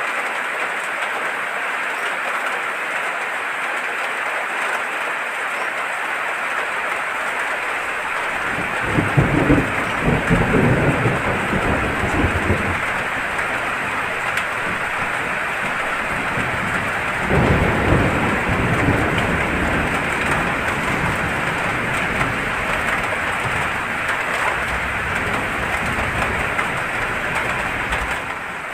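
Steady hiss of heavy rain, with thunder rumbling twice: a long roll about nine seconds in and another around seventeen seconds.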